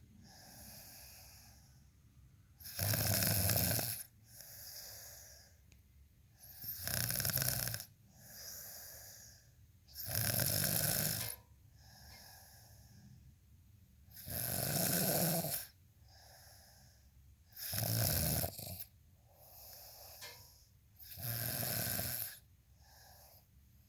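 Snoring in a slow, regular rhythm: six loud, rasping snores, each about a second long, come every three and a half to four seconds, with a softer, quieter breath between each pair.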